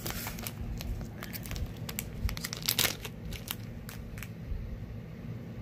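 Small clear zip-lock plastic bag crinkling as it is pulled open and handled: scattered sharp crackles, thickest and loudest about two to three seconds in.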